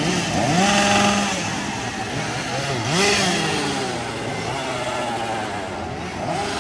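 Chainsaw engine revved twice, about half a second in and again near three seconds in. Each time the pitch climbs quickly and holds briefly before dropping back, and the engine runs unevenly between the revs.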